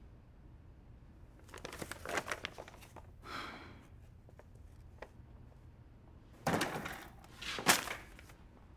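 Sheets of writing paper rustling and crinkling as they are handled, in short bursts about two seconds in and again, louder, near the end.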